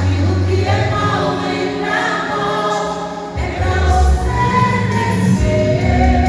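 Group of worshippers singing a gospel hymn together with a bass accompaniment; the bass drops out briefly about three seconds in, then comes back louder.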